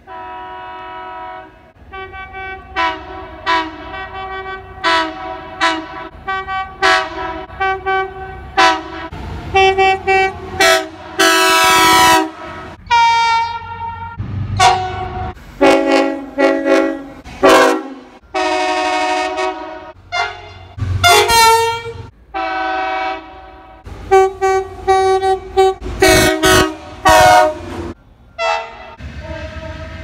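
Electric multiple-unit passenger trains sounding their horns: a long run of short chord toots and a few longer blasts of about a second and a half, each made of several tones at once, one of them dropping in pitch as the train goes by.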